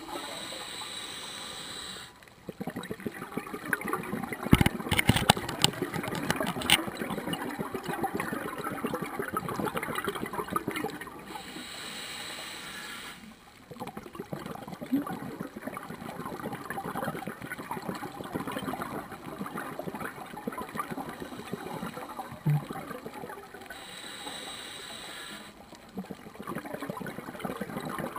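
Scuba diver's regulator breathing, heard underwater: a hissing inhale through the regulator three times, each about two seconds long, with long streams of bubbling exhaled air between them.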